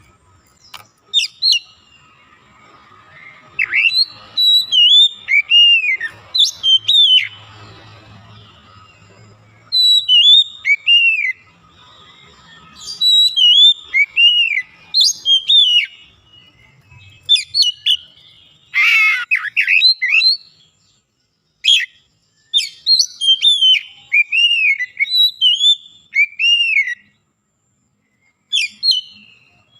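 Oriental magpie-robin (kacer) singing: phrases of clear, arched whistled notes that rise and fall, delivered in bursts of a few seconds with short pauses between. About nineteen seconds in comes one brief, harsher, buzzier phrase.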